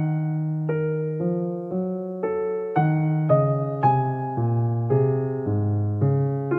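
Slow, relaxing piano music, notes and chords struck about every half second and left to ring.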